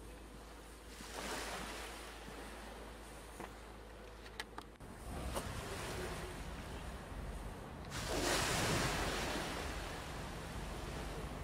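Small waves washing up a concrete harbour slipway: two rushing surges of water, one about a second in and a louder one near the end. A low rumble comes in underneath about halfway through.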